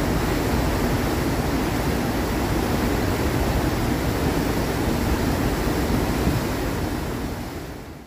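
Churning white water of a cruise ship's wake: a steady rush of foaming water that fades out near the end.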